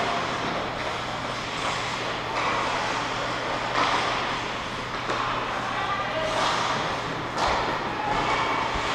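Ice hockey play in a large rink: skates scraping the ice, several sharp stick-and-puck knocks and distant players' shouts, over a steady low hum of the arena.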